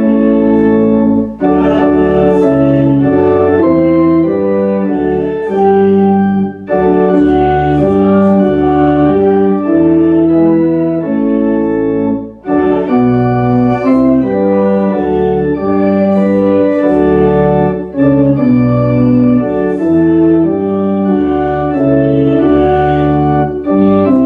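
Church organ playing slow held chords in phrases, with a short break between phrases about every five to six seconds.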